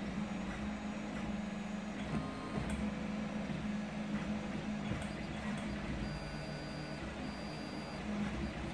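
Home-built CoreXY 3D printer running a print: stepper motors whining in short tones that change pitch as the print head moves, over a steady low hum.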